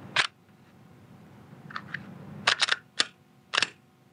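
Glock 43X pistol's slide being fitted onto the frame rails and racked into place: a sharp metallic click at the start, then a quick run of clicks and clacks about two and a half seconds in and two more over the next second.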